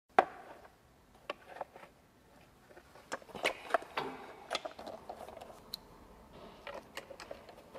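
Scattered light clicks and taps of small parts and plastic panels being handled, as the motorcycle's fairing is refitted.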